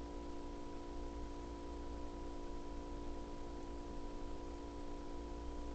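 Quiet room tone: a steady hum of several held tones over faint hiss, with no distinct events.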